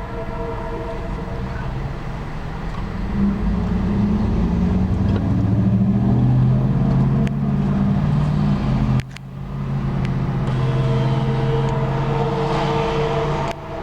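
Diesel locomotive air horn sounding a steady multi-note chord for a grade crossing, giving way after a few seconds to the locomotive's diesel engine running loudly as it passes. The sound cuts off abruptly about nine seconds in, and the horn chord returns over the engine a second or so later.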